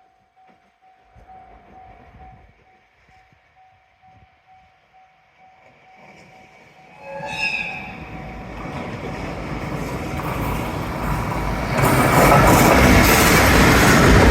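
A train sounds a short horn blast about seven seconds in, then its running noise builds steadily louder as it draws near, loudest in the last few seconds. Before that there is only a faint repeating tone.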